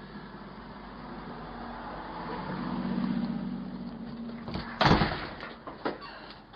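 A vehicle running, its hum growing louder toward the middle, then one loud bang about five seconds in, followed by a couple of lighter knocks.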